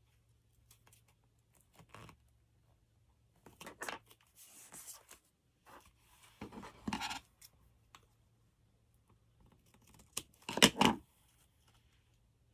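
Scrap paper strips being handled: a few short, irregular rustling and scraping sounds, the loudest near the end.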